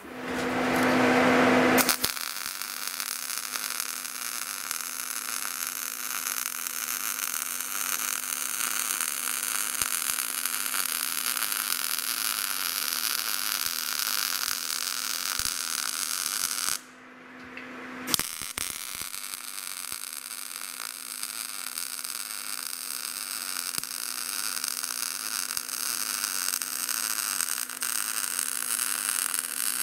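MIG welder arc in gas-shielded short-circuit transfer, giving a steady crackling buzz with a low hum under it: the sound of wire speed matched to the voltage setting. The arc stops for about a second roughly halfway through, then strikes again for a second bead.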